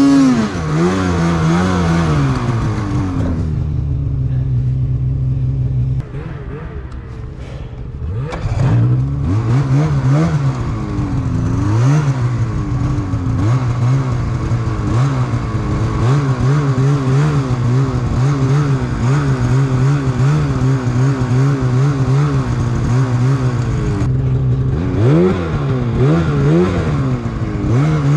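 Snowmobile engine under hard throttle in deep powder, revving up and down over and over. It drops back to a lower, quieter run for a couple of seconds about six seconds in, then climbs again.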